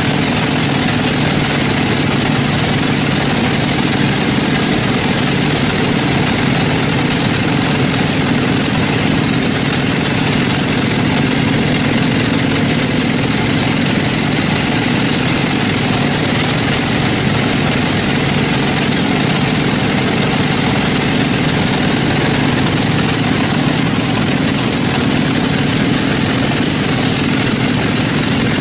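Sawmill machinery running steadily with a loud, continuous engine-like drone. A faint high whine comes and goes twice.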